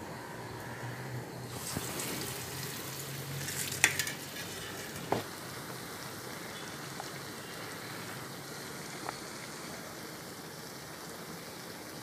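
Medu vada (urad dal fritters) deep-frying in hot oil in a steel pan: a steady sizzle that starts about two seconds in, after a low hum. Two sharp knocks stand out about four and five seconds in, the first the loudest moment.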